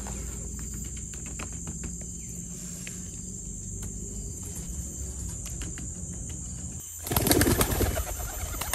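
A group of pigeons taking off together, a loud clatter of flapping wings about seven seconds in. Before it, only faint taps of a wooden spoon over a quiet, steady outdoor background.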